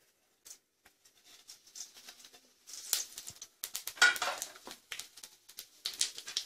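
Tempering seeds crackling and sputtering in hot oil in a stainless steel kadai. It starts about three seconds in, with a louder burst of sizzling near four seconds and quick crackles after.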